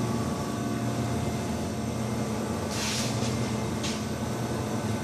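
Steady low machine hum with a few low steady tones, and two brief soft hisses about three and four seconds in.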